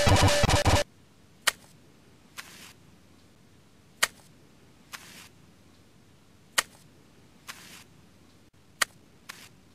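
Music that cuts off abruptly within the first second, followed by a repeating pattern of a sharp click and, about a second later, a short soft swish. The pair comes four times, about every two and a half seconds.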